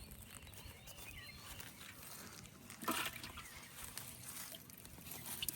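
Faint trickling and splashing of water, with one louder splash about three seconds in.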